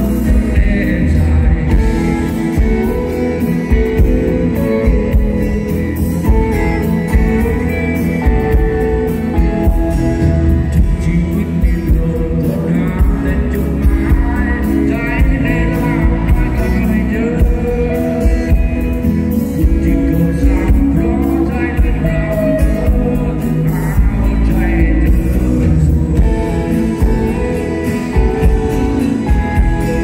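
Live rock band playing through a PA: amplified acoustic guitar and keyboards over a steady beat, with a male voice singing.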